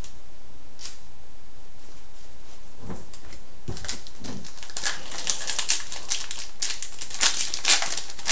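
Hockey trading cards being handled. There are a few scattered clicks at first, then a quick run of light clicks and snaps over the last few seconds as cards are flicked and shuffled.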